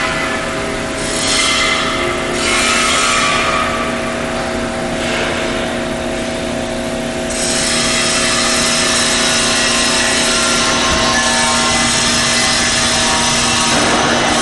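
Industrial machinery running steadily, with a constant hum holding a couple of fixed tones under a hiss that grows louder and steadier about seven seconds in.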